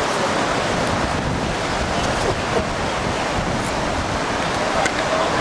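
Steady rush of whitewater river rapids around a raft, with wind buffeting the microphone.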